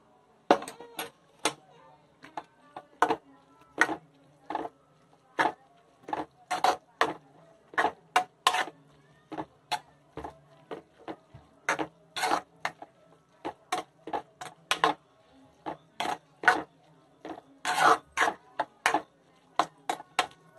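Metal spoon clinking and scraping against a metal kadai while chopped onion, tomato and capsicum are stirred together with tomato sauce: a steady run of sharp, irregular clinks, about two a second.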